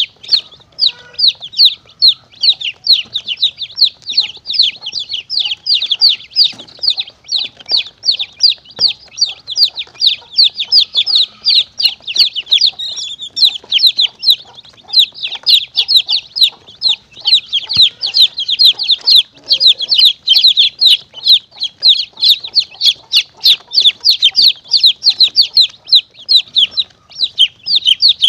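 Many young chicks peeping without pause: short, high, falling peeps several a second. A chick-distress caller recording used to lure monitor lizards and mongooses.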